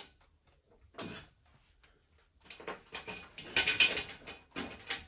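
Handling noise of a perforated metal cabinet support rail with a small leveling tab being set into it: a light click about a second in, then a run of clicks, scraping and rattling, loudest a little before the end.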